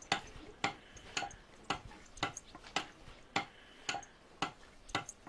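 Small hand adze chopping at a wooden board: sharp, even knocks of the blade into the wood, about two a second, some ten strokes in all.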